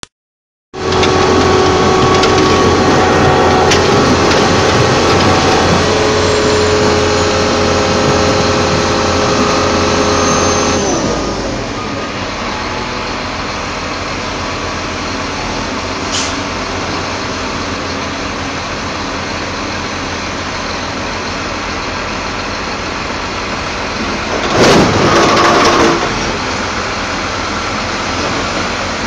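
Heavy diesel engine running steadily under load, its pitch stepping down about six seconds in and dropping again about eleven seconds in. About twenty-five seconds in there is a loud hiss-like burst lasting a second or so.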